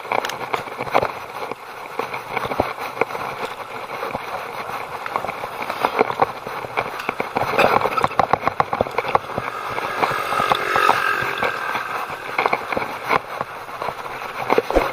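Bicycle ridden over brick paving and packed dirt: rapid rattles and knocks as the bike and camera jolt over the bumps, over a steady rushing noise of tyres and moving air.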